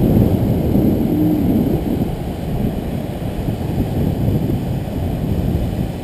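Heavy surf breaking and churning over rocks, heard as a loud, steady low rumble mixed with wind buffeting the microphone.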